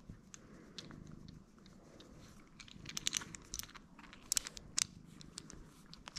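Domestic cat purring faintly, with a cluster of small sharp clicks and crunches around the middle as it mouths a chrome lug nut held to its face.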